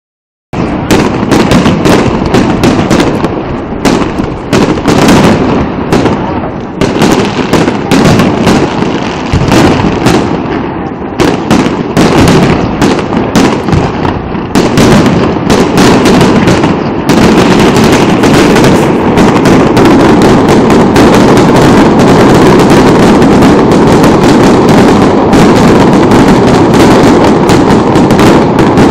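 Aerial fireworks shells bursting in rapid succession, a dense, very loud string of bangs and crackles. Just over halfway through the bangs run together into one unbroken barrage.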